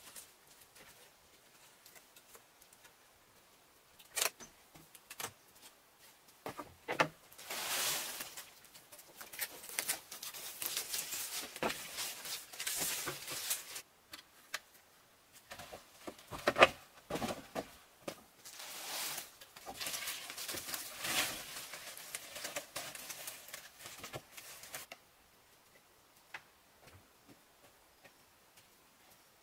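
Woven bamboo lattice panels rustling and clattering as they are handled and fitted against the rock wall, in two long stretches with sharp knocks among them; the last few seconds are nearly quiet.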